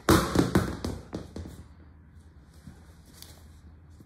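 A quick cluster of knocks and thuds, loudest about a tenth of a second in and dying away within a second and a half, then only faint scattered taps.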